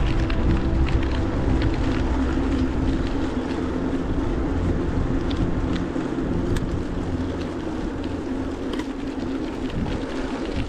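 Wind rushing over a bike-mounted action camera's microphone with the rolling noise of a gravel bike's tyres: a steady low rumble with a faint hum and scattered light ticks.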